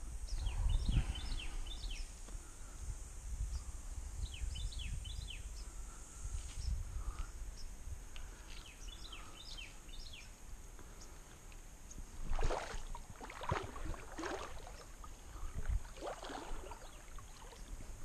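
Small birds singing in repeated bursts of quick, falling chirps, over a low rumble. In the second half come a few swishing splashes of water as the kayak paddle dips in.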